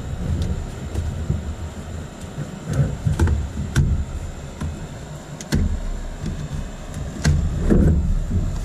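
A cardboard shipping box and its packing being pulled open and handled: irregular scrapes, rustles and light knocks over a steady low rumble.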